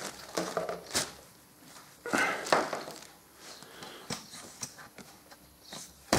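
A few light knocks and clicks from hands handling tools or parts, with quiet gaps between.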